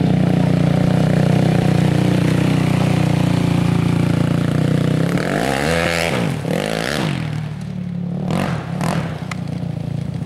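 ATV engines: a steady engine drone close by for the first few seconds, then a quad's engine revving up and down as it accelerates over gravel. There is a spray of gravel about six seconds in, and a few quick throttle blips follow.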